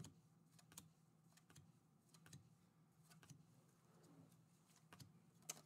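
Near silence broken by faint, irregular clicks of foil-finish Panini Donruss Elite basketball trading cards being slid off a hand-held stack one at a time.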